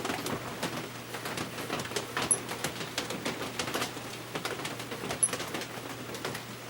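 Irregular light clicks and knocks of metal parts being handled as the vintage Jacobsen mower motor's flywheel is worked free of its shaft. Two sharper knocks come about two and five seconds in, and a dove coos in the background.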